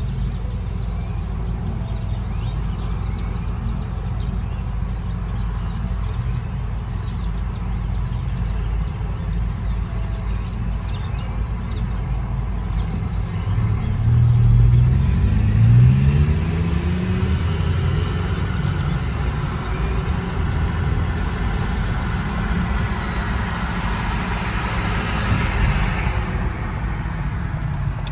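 Car driving with a steady low engine and road rumble; about halfway through, the engine pitch rises as the car accelerates.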